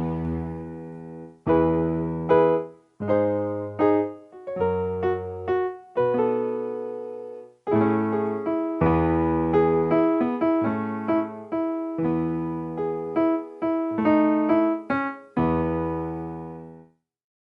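Background piano music: notes and chords struck and left to ring and fade, in short phrases with brief pauses between them.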